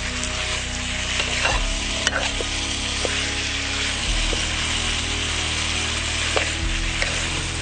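Food sizzling in a hot cooking pot while being stirred, with the spoon clicking against the pot now and then.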